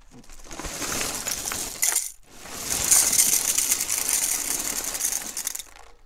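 Dry breakfast cereal flakes poured into a bowl, a dense crackly rattle. Two pours: the first stops about two seconds in, and a second, louder pour follows and fades out near the end.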